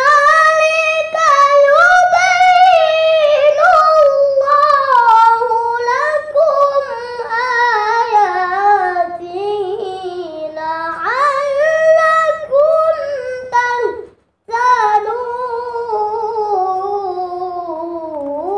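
A boy reciting a Quran verse in the melodic tilawah style: one high child's voice holding long, ornamented notes that wind up and down, with a short break for breath about 14 seconds in.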